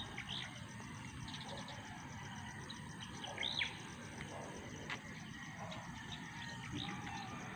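Scattered short bird chirps over a faint, steady high insect trill, with a louder arched chirp about three and a half seconds in.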